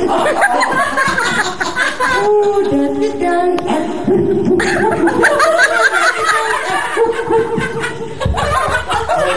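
A group of people laughing hard, several voices at once, over music.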